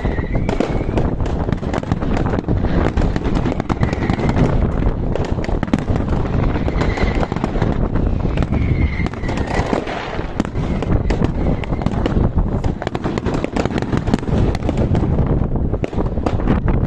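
Fireworks display with dense, continuous crackling and popping from many bursts going off in quick succession.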